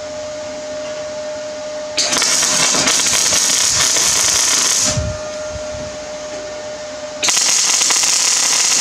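MIG welder laying tack welds on steel flat bar: a crackling sizzle of about three seconds starting two seconds in, then a second one near the end, with a steady hum between them.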